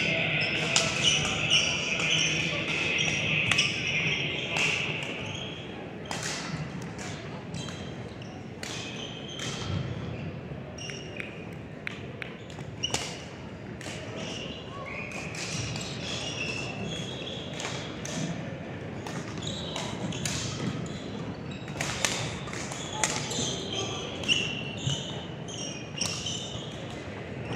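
A doubles rally in a racket sport inside a large hall: sharp racket hits at irregular intervals about every half second to a second, with shoes squeaking on the court floor and voices in the background.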